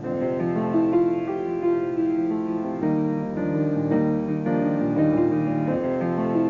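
Slow, gentle instrumental music of held notes and chords that change every half second to a second.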